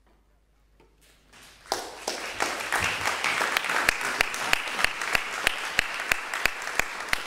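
A moment of near silence, then audience applause rises in about a second and a half in, with one loud clapper close by keeping a steady beat of about three claps a second.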